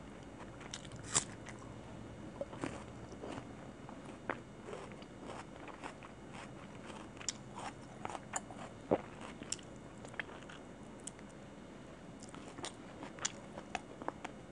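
Close-miked chewing and biting of chicken curry and rice eaten by hand, with many short, irregular sharp clicks and small crunches.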